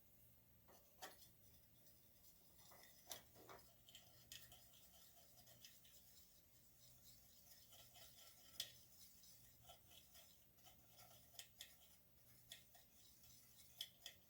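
Very faint light scraping and rubbing with scattered small clicks and taps: a small paintbrush mixing black acrylic paint thinned with water.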